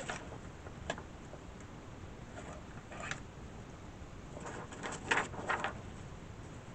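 Paper and a plastic scoring board being handled as a sheet is set down and positioned: a single light tap about a second in, soft rustling around three seconds, then a louder run of paper rustling and scraping about five seconds in.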